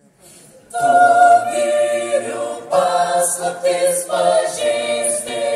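Small mixed choir of women's and men's voices singing in harmony. The voices come in about a second in and sing in short phrases.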